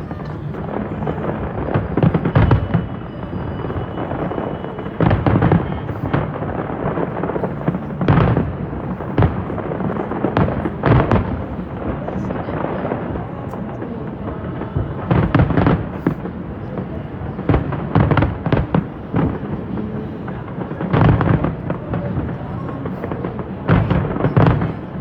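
Aerial fireworks display going off: sharp shell bursts every second or two, some in quick clusters, over a continuous rumbling background.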